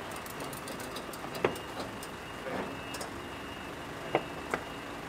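An engine idling with a steady hum and a faint continuous high tone, broken by sharp metallic clanks about 1.5 seconds in and twice near the end.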